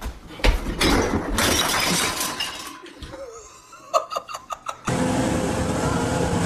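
Thumps and clattering of bottles and jars falling from a refrigerator door onto a hard floor, with a quick run of sharp knocks about four seconds in. From about five seconds in, a steady rush of wind and motorboat engine noise.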